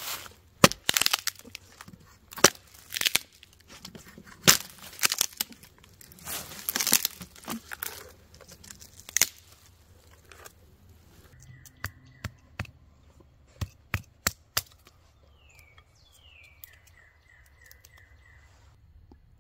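Hatchet chopping into a rotten log and strips of resin-soaked fatwood being torn off it, with a run of sharp cracks and splintering for about the first ten seconds. After that come a few single snaps and clicks as the wood strips are handled, while a bird chirps in short falling notes.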